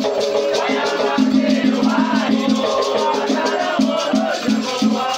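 Afro-Brazilian batuque ritual music: voices singing a chant over a shaken rattle that keeps a steady, even rhythm.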